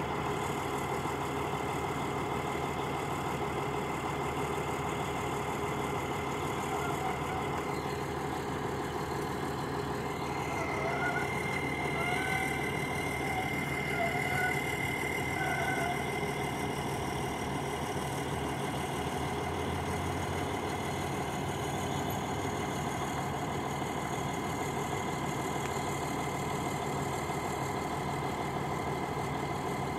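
Diesel engine of a Freightliner heavy wrecker idling steadily, with a few short higher sounds about halfway through.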